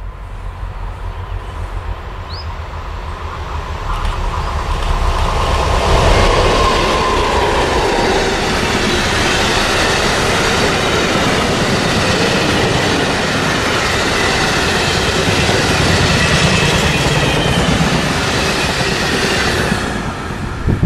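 Freight train hauled by two HLD77 diesel locomotives passing with a rake of empty flat wagons: the sound rises over the first few seconds as the train comes close, then holds as a steady rumble and rolling clatter of the wagons, dropping off just before the end.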